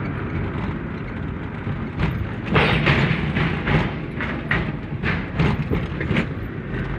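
Car road noise heard inside the cabin while driving: a steady low rumble, with a run of irregular knocks and clunks from about two seconds in until near the end.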